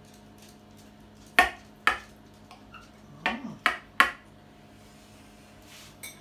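Metal utensils clinking against a glass baking dish and a plate as a baked lasagna is cut and served: two sharp clinks about a second and a half in, then three more in quick succession around three to four seconds.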